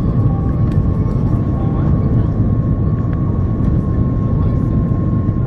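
Cabin noise inside an Airbus A330-300 during its landing approach, low over the runway: a steady, loud low rumble of airflow and engines with one steady whining tone from the engines above it.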